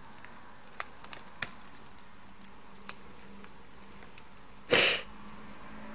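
A cat nibbling at a cellophane-wrapped bouquet of roses: a few small crackles and clicks, then one short, loud puff of noise a little under five seconds in.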